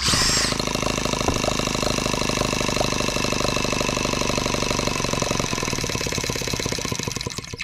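Microcosm H76 twin-cylinder model engine spun up by a starter on the flywheel hub, catching at once and then running fast and steady with a rapid, even firing beat. It cuts out abruptly near the end.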